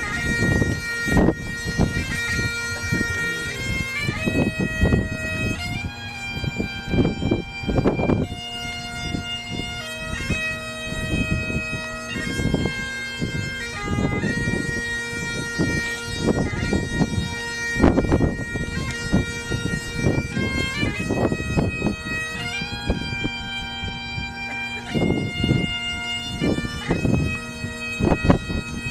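Bagpipes playing a slow tune, the melody stepping between held notes over a steady drone. Wind gusts on the microphone add an uneven low rumble.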